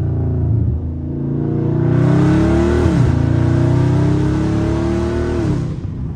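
Catless Dodge Charger Scat Pack's 6.4-litre HEMI V8 accelerating hard, heard from inside the cabin. The exhaust note climbs in pitch, drops sharply at an upshift about three seconds in, climbs again, and falls away near the end as the throttle comes off.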